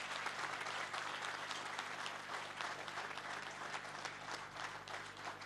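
Audience applauding, many hands clapping at once, easing off gradually toward the end.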